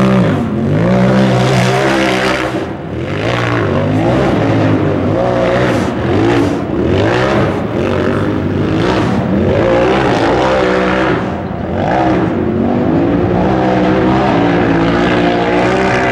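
Polaris RZR side-by-side's engine revving hard under load while climbing a steep rocky hill, its pitch rising and falling over and over as the throttle is worked.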